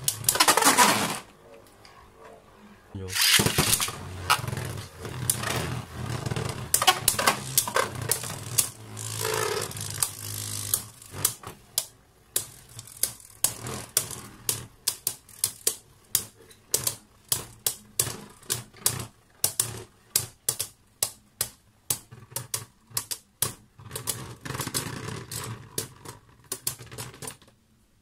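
Beyblade Burst spinning tops launched into a plastic stadium, then spinning and clashing with a dense clatter of clicks. Later the clicks come one at a time and spread out as a top slows and wobbles, stopping near the end.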